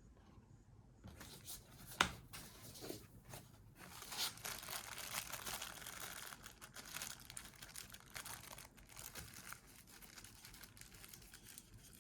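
Packaging crinkling and rustling as it is handled and unwrapped, with one sharp knock about two seconds in.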